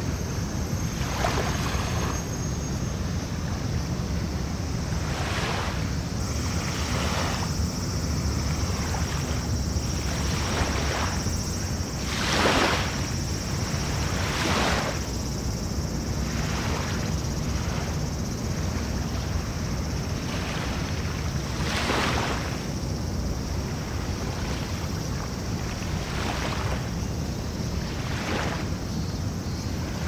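Small waves lapping onto a sandy beach, a soft wash every second or two, the biggest about twelve seconds in, over a steady low rumble.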